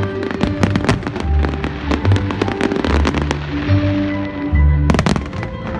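Show music playing over loudspeakers while fireworks crackle and pop again and again, with one louder bang about five seconds in.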